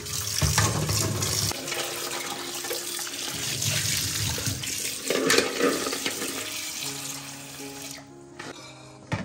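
Tap water running hard into a stainless steel sink and a steel pot of eggs, with hands swishing and rubbing the eggs in the water. The water stops about eight seconds in, followed by a single click near the end.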